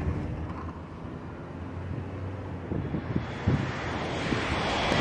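Road and wind noise from a moving car, heard through the cabin and growing gradually louder, with a few low buffets of wind on the microphone about halfway through.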